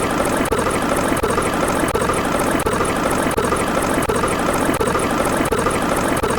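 Steady, loud aircraft engine noise with a faint regular pulse, played as a sound effect.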